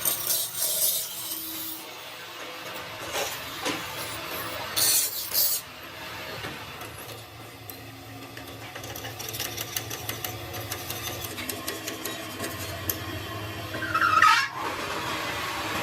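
Machine-shop work noise: a steady low machine hum with intermittent short scraping, rasping sounds of metalwork, and a brief squeal near the end.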